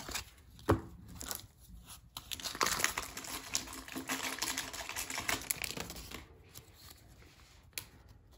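A baseball card pack's wrapper being torn open and crinkled by hand: a dense crackle lasting about three seconds in the middle, after a single light knock near the start.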